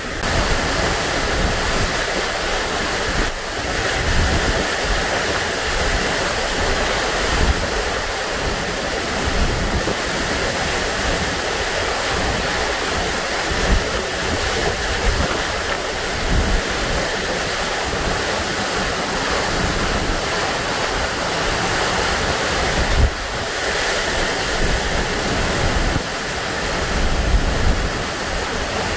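Hurricane-force wind with driving, horizontal rain: a loud, steady roar of wind and rain, with gusts buffeting the microphone as a low rumble throughout.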